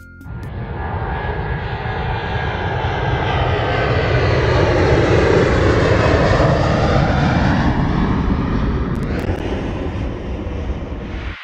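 An airliner flying past: a steady engine rush that swells to its loudest about halfway through and then fades away.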